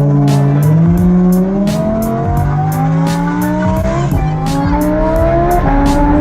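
Lamborghini engine accelerating hard, its pitch climbing steadily, with a brief dip at a gear change about four seconds in. A steady beat of background music ticks over it about three times a second.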